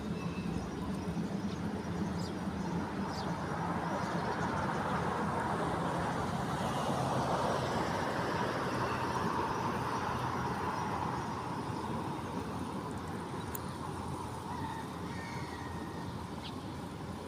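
A passing vehicle's noise swells to a peak about halfway through and then fades, with a few faint bird chirps over it.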